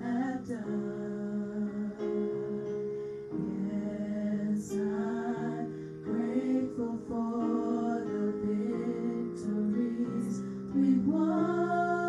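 Worship song: a singing voice over sustained chords of instrumental accompaniment, growing louder near the end.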